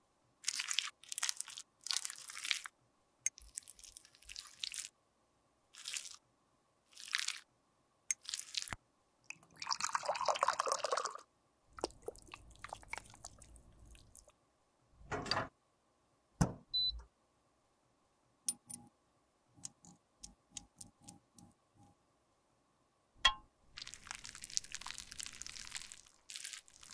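Close-up handling of lipstick in glass beakers: short crisp strokes of metal tweezers on soft lipstick and small taps on glass. About ten seconds in there is a louder liquid stretch, then a few sharp clicks and a run of small ticks. Near the end a metal rod stirs lipstick melting in a glass beaker.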